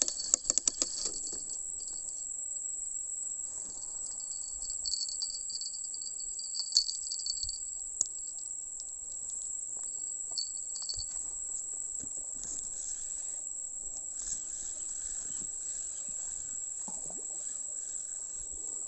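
Steady, high-pitched chorus of insects, with a second, lower insect trill that drops out about halfway through. A quick run of clicks and knocks in the first second.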